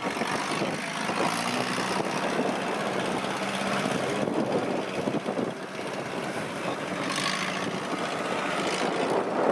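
Kubota DC-70 rice combine harvester running: a steady diesel engine drone with a constant low hum underneath.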